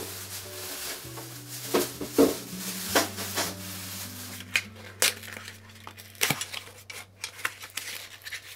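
Soft background music with held notes, over a string of knocks, clinks and rustles as new metal wire hangers and their cardboard packaging are handled. The loudest knocks come about two seconds in.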